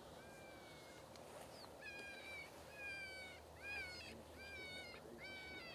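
Electronic predator caller playing a repeated animal distress call: a series of high, slightly falling cries, about one a second.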